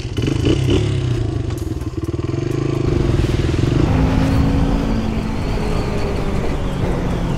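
Motorcycle engines running while riding, heard steadily throughout: first a small dirt bike on a trail, then a sport bike on the road.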